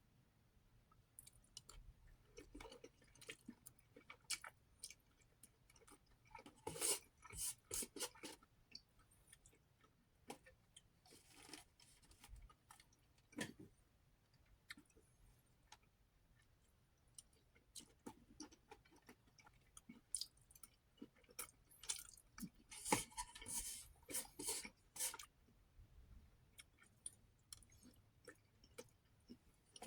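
A person chewing food with their mouth close to the microphone: irregular wet clicks and smacks, with two louder crunchy stretches, about seven seconds in and again around twenty-three seconds in.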